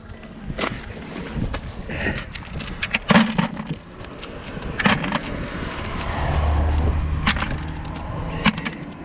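Scattered clicks and clinks as a magnet-fishing magnet and the nails stuck to it are handled, with a low rumble swelling and fading about two-thirds of the way in.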